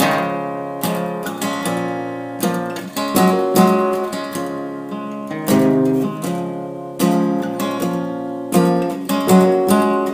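Acoustic guitar strummed in chords, each strum ringing on until the next. This is the instrumental intro of the song, with no voice yet.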